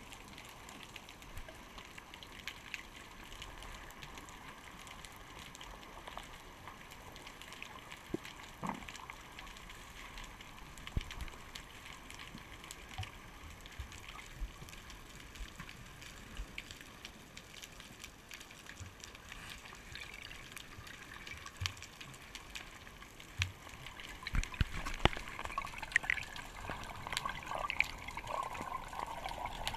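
Underwater sound through a GoPro's waterproof housing: a steady muffled hiss with scattered clicks and knocks. It grows louder and busier for the last few seconds as the diver rises toward the surface, with bubbles around him.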